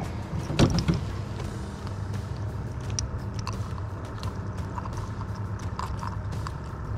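Steady low engine hum, with scattered clicks and knocks and one louder knock about half a second in.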